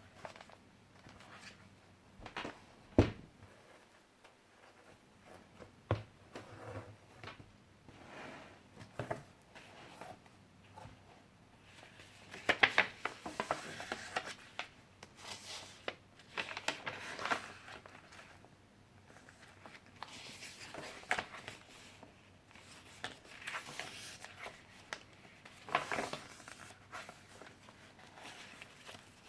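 Pages of a handmade junk journal being turned and handled: paper rustling in irregular bursts with scattered small clicks, and one sharp knock about three seconds in.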